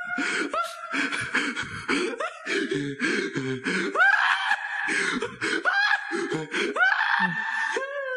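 A man laughing hard without words: a run of high-pitched rising squeals and breaths, one after another.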